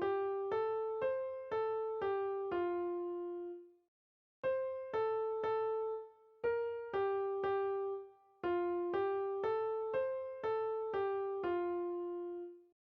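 Background music: a simple, gentle keyboard melody of single decaying notes, about two a second, in phrases with a brief pause about four seconds in.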